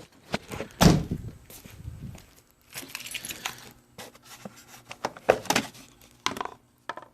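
Scattered clicks and knocks of hands handling parts under the car's hood, with one louder knock about a second in and several lighter clicks after.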